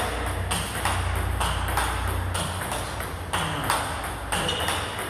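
Table tennis rally: a steady run of sharp clicks, about two to three a second, from the ball striking a Butterfly Fan Zhendong ALC blade with Dignics 09C rubber and bouncing on the table during forehand topspin drills.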